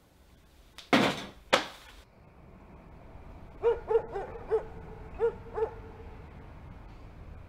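Two heavy thumps about half a second apart. About two seconds later a dog barks six times in quick succession.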